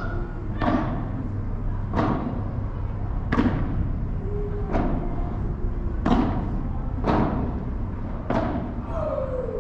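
Padel rally: a ball struck back and forth with solid padel rackets, about seven sharp pops spaced a second or so apart. Each pop echoes briefly around the large hall.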